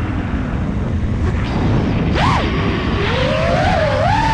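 A 5-inch freestyle FPV quad's T-Motor LF40 2450Kv brushless motors and propellers whining, the pitch swooping up and down as the throttle changes, over a steady low rumble of wind. About two seconds in the pitch jumps up and drops again, and later it wanders up and down continuously.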